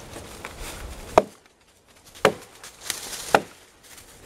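Axe chopping into a dead elm log: three sharp strikes about a second apart, the first the loudest, with a lighter glancing blow between the second and third.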